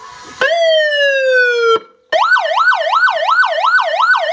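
Electronic police siren played through a bridged Rockford Fosgate Punch 602 car amplifier. About half a second in, a single tone slides slowly down. After a short break, a fast yelp warbles up and down about three times a second.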